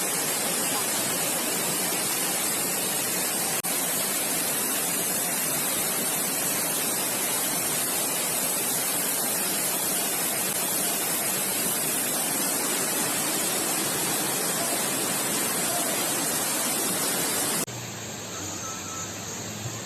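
Loud, steady rush of floodwater. It cuts off suddenly about two seconds before the end, leaving a quieter hiss with a low hum.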